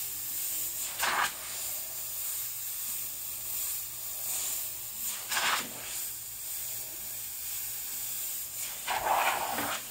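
Airbrush hissing steadily as it sprays paint, with three short louder bursts: about a second in, midway, and a longer one near the end.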